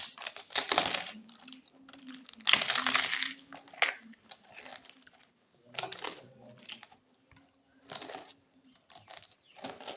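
Close-up eating sounds: food being chewed and handled in a run of short, irregular bursts, the loudest two in the first half.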